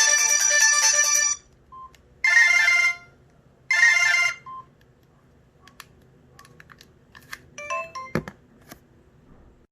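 Samsung SGH-T729 Blast mobile phone playing a polyphonic ringtone that stops about a second in, followed by two short melodic tone snippets. After these come a few faint short beeps and clicks, with a single thump near the end.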